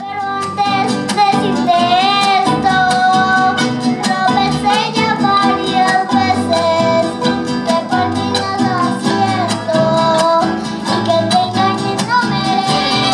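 Mariachi band playing an instrumental introduction: violins and trumpets carry a melody with vibrato over strummed vihuela and guitar and a guitarrón bass line.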